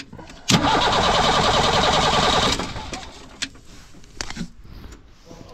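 Ford Transit 2.5 diesel engine being cranked on the starter for about two seconds, then falling away. The fuel system is drawing air, which makes the engine start and then stall.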